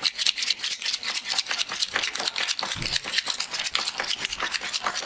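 A thick stack of paper banknotes being counted by hand at high speed, each note flicked past the thumb with a crisp paper snap, in a rapid unbroken run of ticks.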